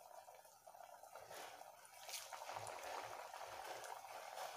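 Faint sizzling and crackling of cauliflower-and-potato vadas deep-frying in hot oil, a little louder from about halfway through.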